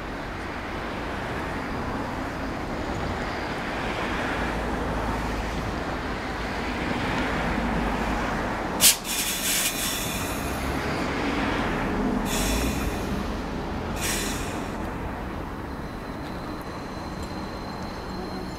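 Hakodate City Tram car 9602, a 9600-series low-floor streetcar, rolling slowly over curved depot track with a steady rumble of wheels and running gear. About nine seconds in there is one sharp clack, likely a wheel striking a rail joint or points, followed by a few brief high-pitched wheel squeals as it takes the curve.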